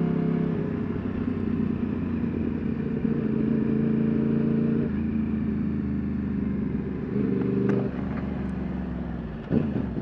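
2009 Yamaha R1 crossplane inline-four with Akrapovic slip-on exhausts, running steadily in traffic, its pitch stepping up and down several times as the throttle changes, over road and wind noise.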